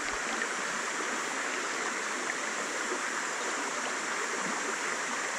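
Shallow stream water running over a gravel riffle: a steady, even rush.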